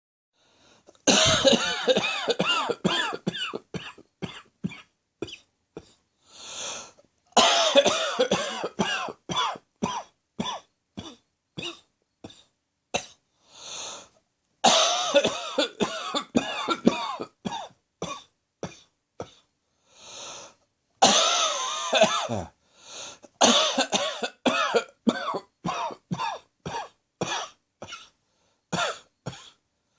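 Heavy acid reflux cough: four long fits of rapid, repeated coughs that each trail off, with a drawn-in breath between the fits.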